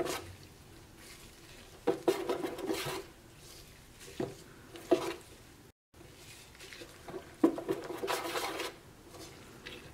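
A metal spoon stirring and scraping thick rice batter in a stainless steel bowl, in several short bouts with sharp clinks of spoon against the bowl.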